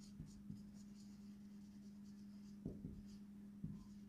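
Marker pen writing on a whiteboard: faint, short scratchy strokes as a word is written, over a steady low hum.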